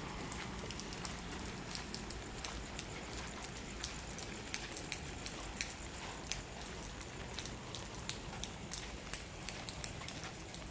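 Light drizzling rain: a steady hiss with many small, irregular drop ticks.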